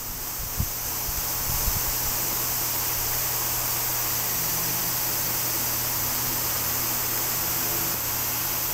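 Steady background hiss with a low hum underneath, and a couple of faint knocks in the first two seconds.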